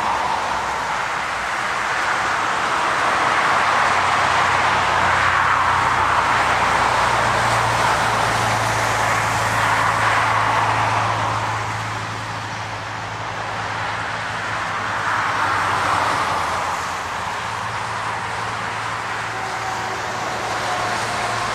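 Highway traffic with cars and trucks passing one after another. Their tyre noise swells and fades every few seconds over a low, steady engine hum.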